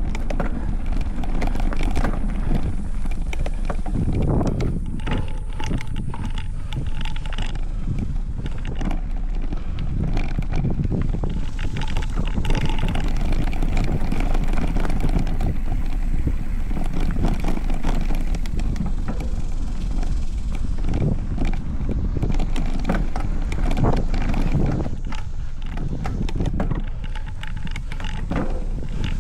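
Specialized Stumpjumper Evo mountain bike ridden over a dirt trail, picked up by a camera clamped to the handlebar: steady tyre and rolling noise with frequent knocks and rattles as the bike goes over bumps.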